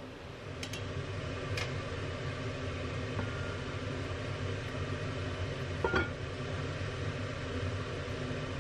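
Steady rushing hum from a stovetop where a pot of water is at a rolling boil, with a few light clicks and, about six seconds in, one louder clink as the enamelled cast-iron lid of a braiser is handled.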